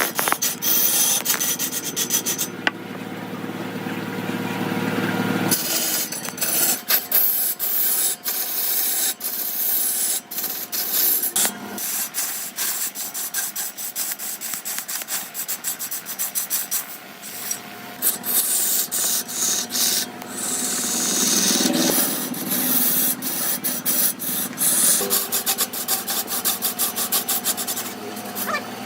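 Redwood being worked with an abrasive or rasping tool: a rough, scratchy rubbing made of many quick strokes. It changes abruptly several times along the way.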